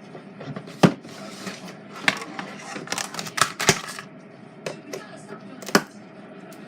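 Plastic glue bottle being handled and its cap worked open: a run of irregular sharp clicks and knocks with rustling in between. The cap is stuck with dried glue.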